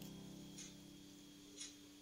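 Quiet background music sinking low, with two faint brief scrapes, about half a second and a second and a half in.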